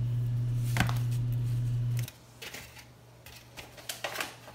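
A steady low hum that cuts off abruptly about two seconds in, with a sharp click just before a second in; afterwards only faint scattered clicks and taps.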